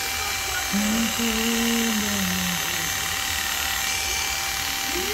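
Electric hair clippers buzzing steadily as they fade the side of a short haircut with a number one guard. A brief low hummed note falls slowly in pitch from about a second in.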